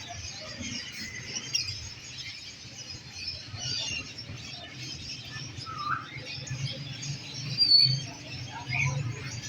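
Many small caged birds chirping and twittering all at once, short high calls overlapping throughout, over a low steady hum.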